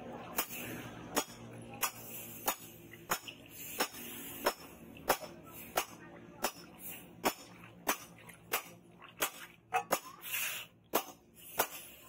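A hot steel knife blade hissing as it is dipped into quench water, with the hiss strongest near the start and again around ten seconds in. Over it, sharp knocks repeat at a steady pace, about three every two seconds.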